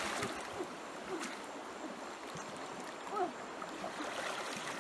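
Steady rush of flowing stream water, with a brief faint call rising and falling about three seconds in.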